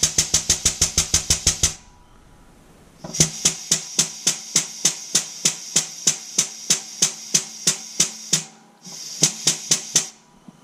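Shop press driving a rubber suspension bush into a cast-iron suspension arm: a rapid, even mechanical clatter of about five strokes a second, in three runs with short pauses between them.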